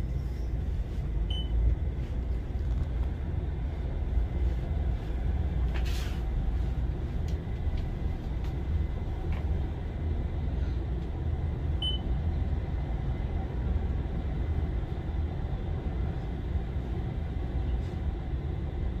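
Traction elevator car riding up an express run, heard from inside the car: a steady low rumble of the car travelling in the hoistway, with a single sharp knock about six seconds in.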